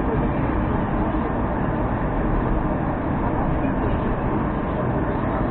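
Moskva-2019 metro train carriage, heard from inside: a steady, even rumble from the running train.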